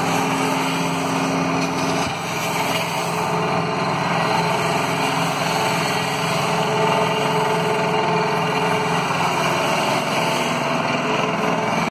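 Steady engine and traffic noise, with a low hum that stops about two seconds in; no separate impacts or blows stand out.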